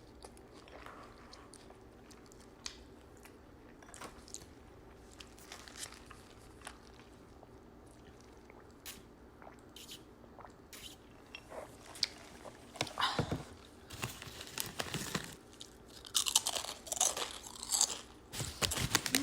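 Close-miked eating sounds. Soft chewing with small mouth clicks gives way to louder, repeated crunching bites in the last several seconds.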